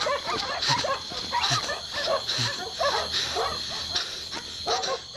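Several dogs barking, with short irregular barks coming a few times a second and overlapping, over a steady high-pitched background tone.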